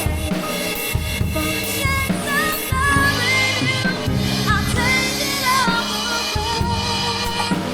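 A song with a singer's wavering melody line over bass and drums, with the steady high wash of cymbals.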